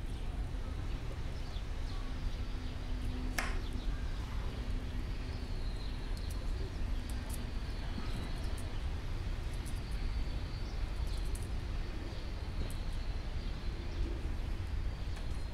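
Small knife cutting broccoli florets over a frying pan, with scattered faint ticks as pieces drop onto the pan and one sharper click about three and a half seconds in, over a steady low background rumble.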